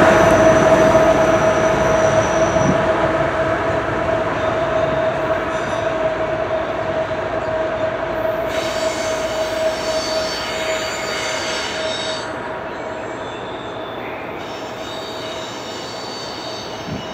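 Autorack freight train rolling away on the rails with a GE ET44AH locomotive pushing at its rear, its noise fading steadily as it recedes. A steady high-pitched wheel squeal carries through and fades with it.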